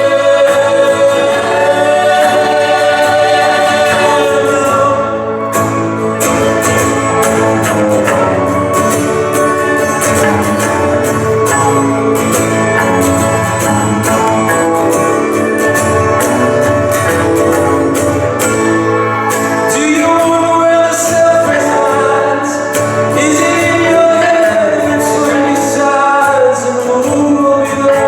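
Live band music in an instrumental break of a song: long held, wavering melody lines over layered accompaniment, with a steady run of percussive strokes coming in about six seconds in.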